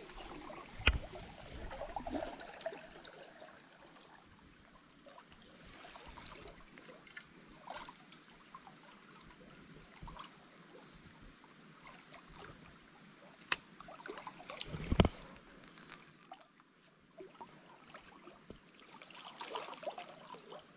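Steady high-pitched insect chorus, one unbroken tone that dips briefly about three-quarters of the way through. A few sharp clicks and a knock sound over it, from the spinning rod and reel being handled.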